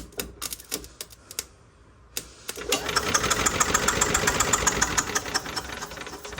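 Jumper cable snapping and clicking as it is touched to the starter solenoid, then the Yamaha G9 golf cart's starter-generator spinning the engine over fast with the spark plug out, for about three and a half seconds before winding down.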